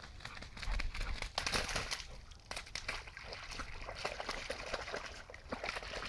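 Squelching and splashing steps in wet mud and puddle water: a quick, uneven run of wet slaps and splashes, loudest in the first couple of seconds.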